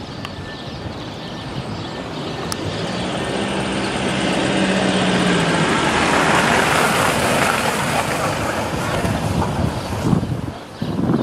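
A road vehicle passing close by: its engine hum and tyre noise swell to a peak about two-thirds of the way through, then fade.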